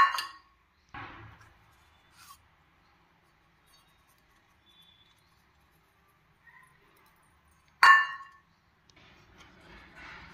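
Two sharp metallic clinks on a stainless steel plate, about eight seconds apart, each ringing briefly, as powdered ingredients are tipped in and combined. A softer, duller knock follows about a second after the first clink, and faint rustling of the powder comes near the end.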